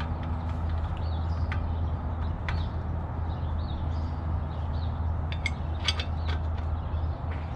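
Scattered metal clicks and clinks of a bottom-bracket tool and socket wrench being worked on a 1996 GT Zaskar's bottom bracket, with a cluster of them about five to six seconds in, over a steady low hum.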